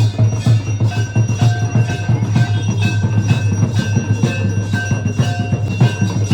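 Temple bells struck rapidly and continuously, several pitches ringing together over fast, steady percussion.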